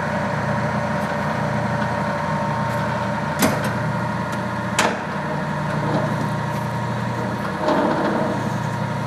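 A Clausing 13-inch variable-speed lathe running under power with a steady motor and drive hum, broken by two sharp clicks about three and a half and five seconds in.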